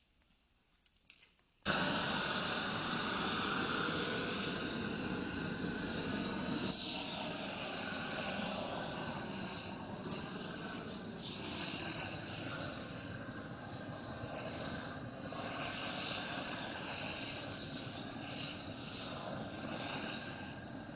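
Propane roofing torch coming on suddenly about two seconds in and then burning with a steady, loud hiss that swells and dips a little as it is played over the floor.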